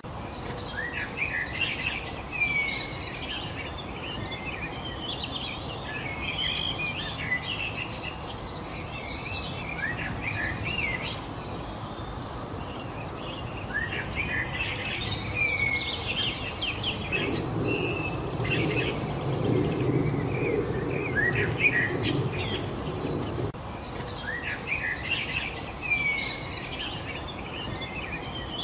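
Several songbirds chirping and trilling at once, with many short, quick calls overlapping throughout, over a steady background hiss. A low rumble joins in for a few seconds in the middle.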